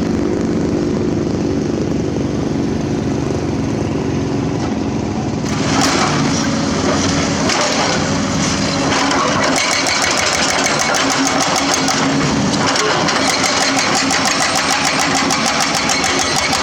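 Diesel engine of heavy earthmoving machinery running steadily under load. From about six seconds in a rapid, even clatter joins over the engine.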